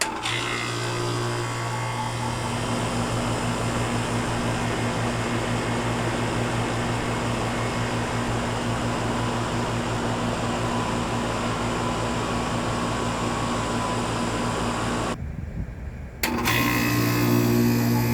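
A 1995 Tempstar 5000 3-ton outdoor air conditioner unit starts suddenly: the Copeland reciprocating compressor and condenser fan kick on together, then run with a steady low hum over a rush of fan air. It drops out briefly about fifteen seconds in, then comes back.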